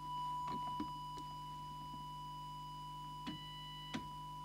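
Steady, pure test tone from an audio oscillator, fed into the CB transmitter to set its FM deviation, with a few faint clicks.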